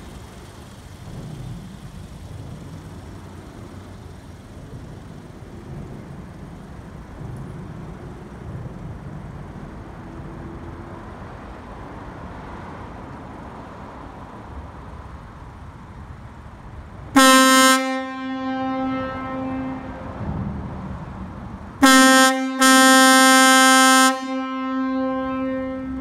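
Zöllner Makrofon M75F260 260 Hz air horn sounding on compressed air at about 10 atmospheres: two blasts of one steady low note, a short one and then a longer one of about two seconds, with a brief break in it.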